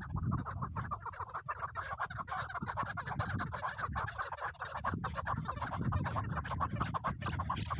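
Chukar partridges calling: a rapid, continuous series of short clucking notes.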